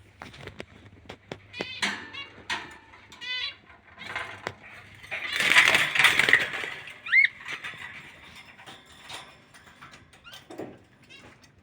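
Many small cage birds chirping and chattering, with short rapid trills, and a loud burst of massed squawking calls about five seconds in.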